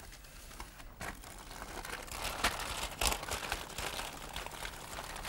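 Sheets of paper rustling and crinkling as sandwiches are folded up in them, with a few small taps on the worktop.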